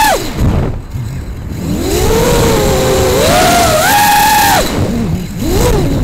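Brushless motors of a 5-inch FPV quadcopter (2205 motors on 5045 tri-blade props), heard from on board: a high whine that drops away as the throttle is cut about half a second in, then climbs back up in steps as power comes back on. The whine cuts out again near the end with a brief blip, and a low rush of wind noise fills the dips.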